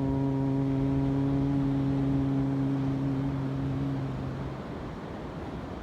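A single voice chanting one long, steady mantra note, held level and ending about four and a half seconds in, leaving only the hiss of wind and surf.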